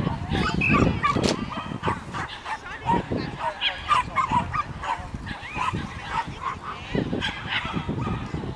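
Dogs barking and yelping in many short, high calls, over repeated low thumps.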